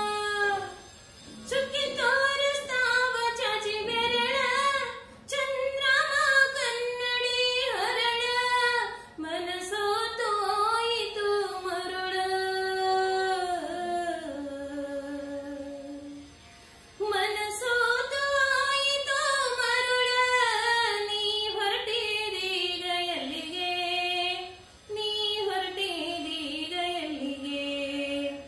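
A woman singing solo without accompaniment, a melodic song in phrases broken by short breaths, with some notes held at the ends of lines. A pause of about a second comes a little past the middle.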